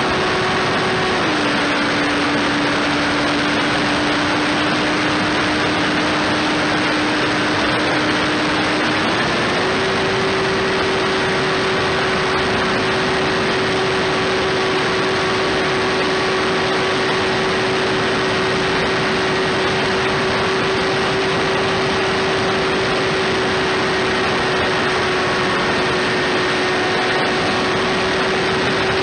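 An RC foam plane's electric motor and propeller whining steadily in flight, over a rush of wind noise. The pitch drops about a second in and rises again around nine seconds in as the throttle is eased back and opened up.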